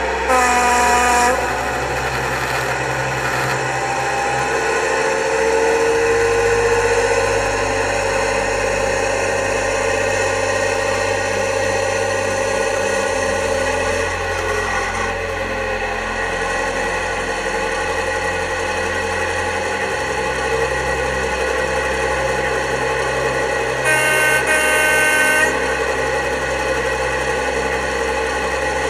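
Sound-fitted OO gauge model diesel locomotive playing its engine sound through its small speaker: a steady drone whose pitch shifts a few times. The horn sounds twice, briefly about a second in and for a second or two near the end.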